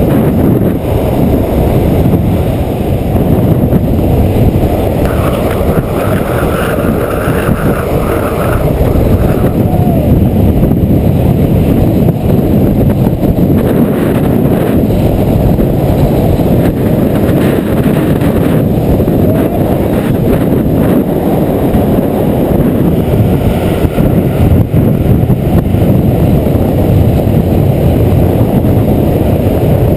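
Wind blasting the camera microphone at downhill longboarding speed, over the rumble of longboard wheels rolling on asphalt; a steady, loud rush throughout.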